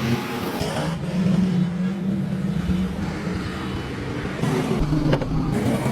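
An engine running, its low drone shifting slightly in pitch.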